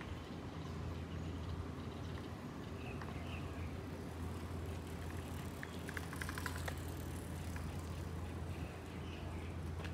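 Outdoor morning ambience: a steady low hum with a few short bird chirps, and a brief run of rapid ticking about six seconds in.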